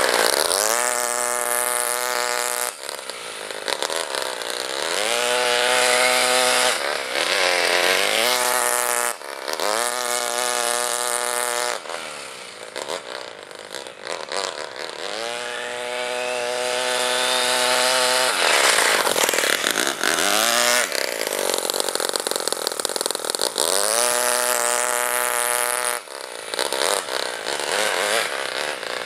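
Single-cylinder O.S. FS-26S four-stroke glow engine with a ported head and a homemade exhaust header, in a 1/8-scale RC buggy, revved hard in repeated bursts as the buggy runs. Its pitch climbs with each burst of throttle and drops off between them.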